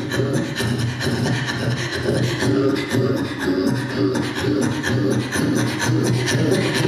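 Inuk throat singing: fast, rhythmic guttural vocal pulses over a steady low voiced tone, sung into a microphone.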